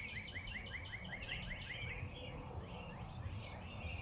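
A bird chirping: a fast run of short, repeated high chirps, about five or six a second, which thins to scattered chirps after about two seconds, over a low steady outdoor rumble.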